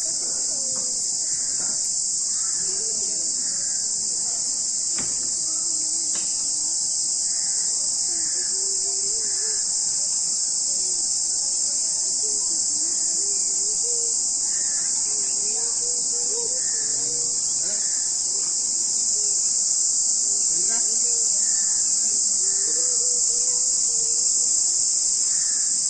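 A chorus of insects keeping up a continuous, steady high-pitched drone.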